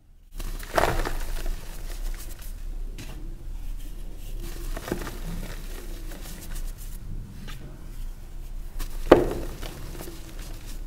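A ball of reformed gym chalk squeezed and crushed in the hand, crumbling into powder. There are sharp crunches about a second in and around three and five seconds, with the loudest crunch near the end.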